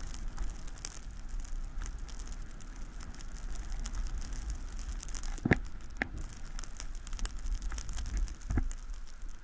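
Downhill run on snow at about 15 to 18 mph, picked up by a body-worn action camera: a steady low wind rumble on the microphone with a fast crackle of snow and scraping clicks, and a few sharper knocks in the second half.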